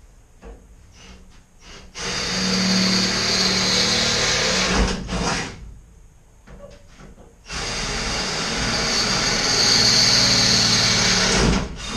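Power drill running in two long runs of about three to four seconds each, each followed by a short extra burst, with small clicks and knocks in between.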